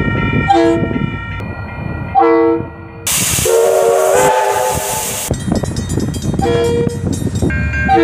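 Diesel locomotive horn giving short toots. From about three seconds in, a steam locomotive's whistle blows for about two seconds over loud steam hiss. Then rapid regular ringing of level-crossing bells, with another short diesel horn toot at the very end.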